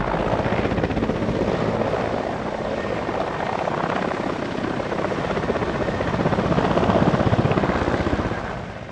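Helicopter rotor sound, a fast chopping that grows louder to a peak about seven seconds in and then fades away near the end.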